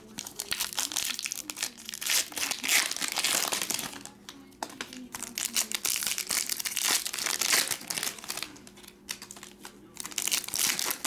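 Foil trading-card pack wrappers being torn open and crinkled by hand, in three stretches of crackly crinkling with short pauses between them.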